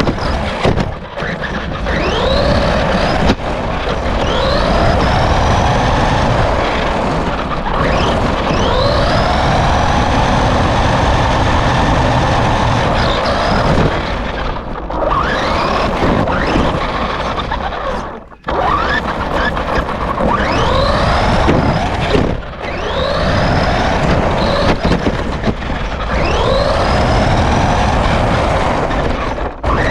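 RC car's motor whining up again and again as the car accelerates, each burst a rising whine that levels off, over a constant rush of wind and ground noise picked up by a camera riding on the car.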